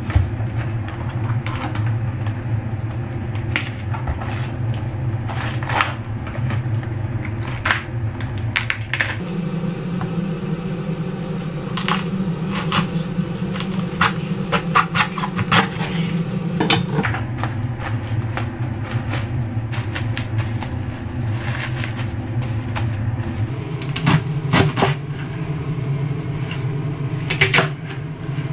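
Green cabbage being peeled and cut with a chef's knife on a wooden cutting board: leaves snapping and crunching, and the blade striking the board in irregular knocks that come thicker in the later part. A steady low hum runs underneath, stepping in pitch a few times.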